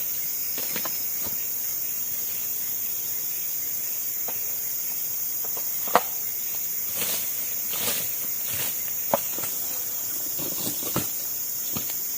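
Steady high-pitched drone of forest insects, with scattered short clicks and knocks over it; the sharpest click comes about six seconds in.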